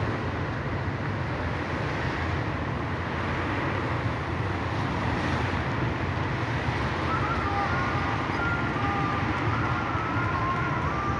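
Steady road traffic noise from cars driving along the adjacent city street.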